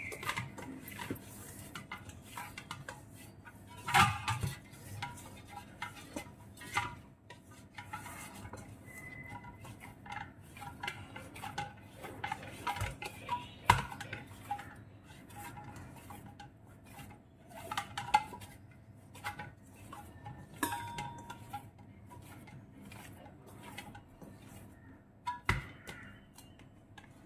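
Hands kneading dough in a stainless steel bowl, the bowl knocking and clinking irregularly as it is worked, with sharper knocks about four seconds in and again near fourteen seconds.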